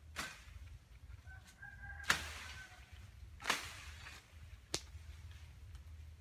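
Leafy bamboo branches rustling and swishing as they are grabbed and pulled by hand, in four bursts with the loudest about two seconds in and a short sharp crack near the end. A rooster crows faintly in the background around the middle.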